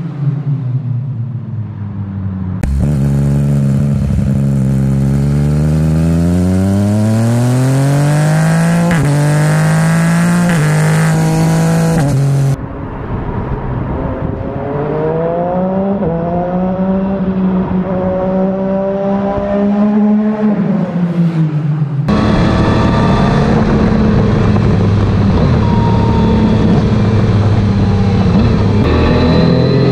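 Yamaha MT-09 SP's three-cylinder engine through an Akrapovic full-system titanium exhaust with no baffle, accelerating hard through the gears: the pitch climbs and drops back at each upshift. The sound cuts abruptly between takes a few times, and in the last part the bike is heard from alongside while riding, with wind rushing over the microphone.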